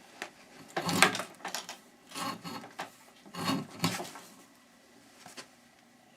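Taped cable being pulled through a wire stripper's blade, scraping and rubbing in three short bursts, then a small click near the end.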